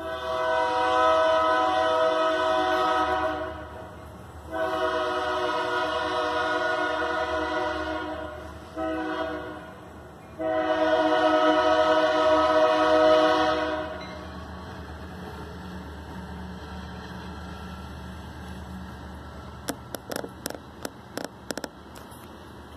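Locomotive air horn sounding the grade-crossing signal: two long blasts, a short one and a final long one, each a steady multi-note chord. After it the passing train rumbles steadily, with a quick run of clicks near the end.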